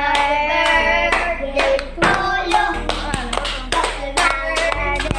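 A song with singing over a steady bass line, about every two seconds moving to a new bass note, with sharp hand claps throughout.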